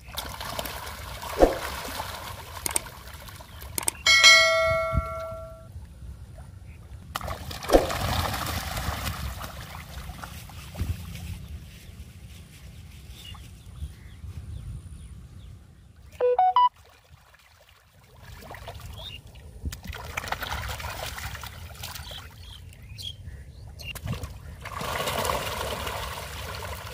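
Magur (walking catfish) splashing and churning the pond surface as they feed, coming in several bouts of splashing. About four seconds in, a brief ringing tone sounds over the water.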